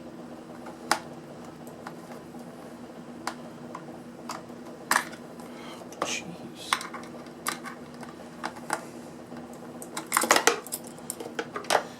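Scattered light metallic clinks and knocks as an extruded aluminium piece and other scrap parts are handled and set down, with a quick cluster of clatters about ten seconds in. A faint steady hum runs underneath.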